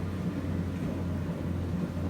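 Rice combine harvester's engine running steadily with a constant low hum.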